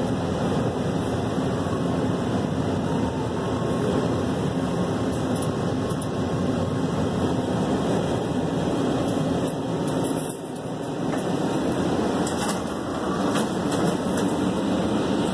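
Steady rumble and hum inside a Metro Red Line subway car running through the tunnel. The noise dips briefly about ten seconds in, and a few light clicks come through over the second half.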